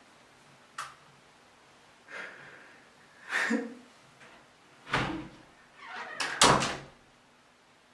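A door being handled and shut: a click, a couple of scrapes and a thud, then a loud slam about six and a half seconds in.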